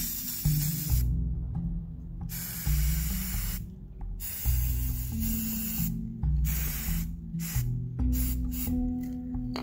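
Aerosol spray paint can hissing in several bursts of about a second each, with short pauses between them.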